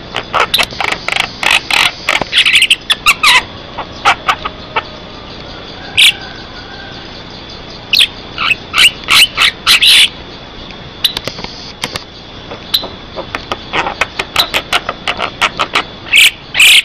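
Javan myna (jalak kebo) singing loudly in runs of short, sharp chattering notes, in bursts broken by pauses of a second or two.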